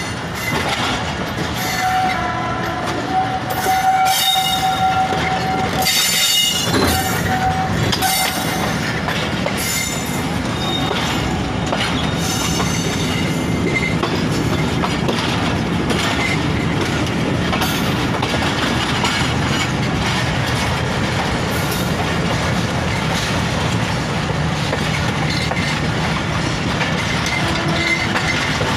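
Passenger train rolling slowly into a station, heard from an open carriage door: wheels clattering over rail joints and points with a steady rumble. A held high tone sounds from about two to eight seconds in, with sharp screeching streaks over it.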